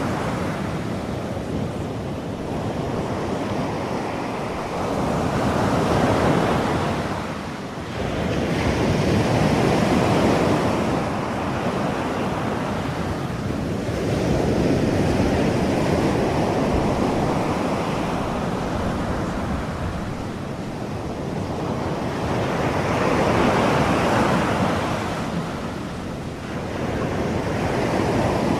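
Ocean surf: a steady rush of waves breaking and washing in, swelling and ebbing every several seconds.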